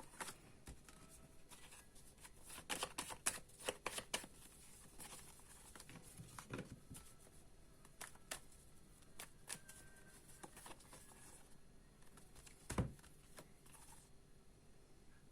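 Tarot cards being shuffled and handled: faint scattered clicks and snaps, a quick run of them about three seconds in, and one louder thump near the end.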